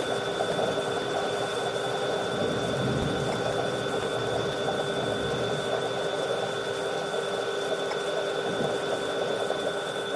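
A machine running steadily: a constant hum with a dense crackling rattle that does not change.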